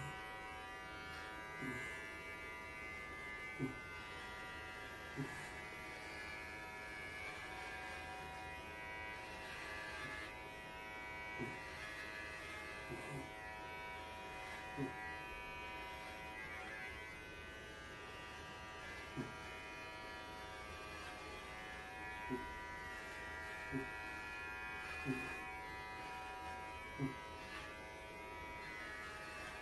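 Cordless electric pet clippers running with a steady buzz as they shave a Pembroke Welsh corgi's coat down short. Short low knocks come every second or two.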